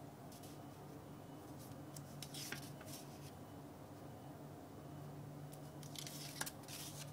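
Paper strips rustling and sliding as a hand lifts them off a stack on a table, in two short spells, about two seconds in and again near the end, each with a sharp papery click.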